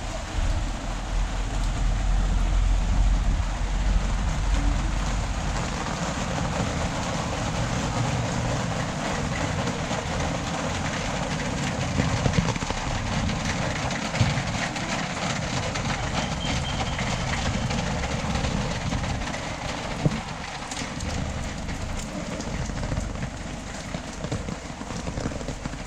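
Steady rain falling on a town street, with traffic noise; a vehicle rumbles past in the first few seconds, and there are a few sharp knocks later on.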